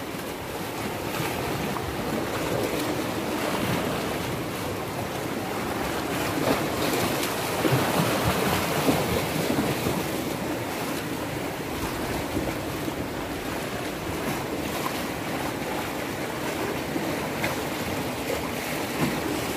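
Sea surf surging and splashing over barnacled shoreline rocks, a steady rushing wash that swells now and then.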